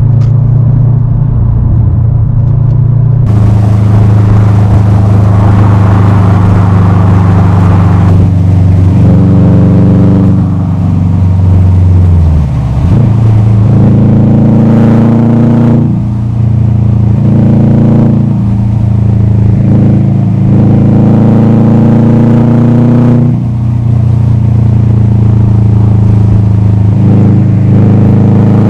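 Subaru WRX STI's turbocharged flat-four engine running hard while driving, revs rising and falling with the throttle, with a few brief dips in level as it changes gear.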